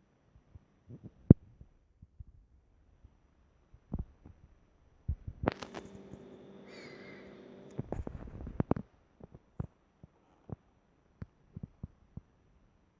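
Handling noise from unboxing a pair of speakers: scattered knocks and taps on the box and packaging. Partway through there is a busier few seconds of handling with a steady hum under it.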